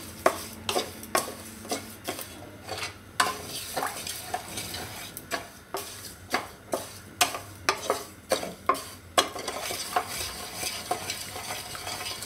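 Wooden spatula stirring sugar and water in a steel kadai, knocking and scraping against the pan about twice a second. Under it the syrup sizzles and hisses as the sugar dissolves, the first stage of a one-thread sugar syrup.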